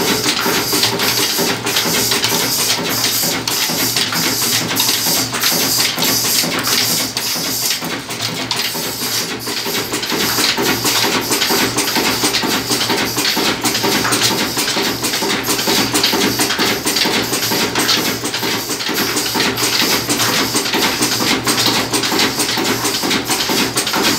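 Stationary single-cylinder diesel engine with a heavy flywheel running steadily, giving an even knocking beat of roughly three firing strokes a second.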